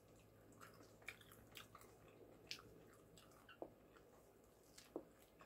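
Faint chewing: scattered wet mouth clicks and small crunches of someone eating, several a second, over a low steady room hum.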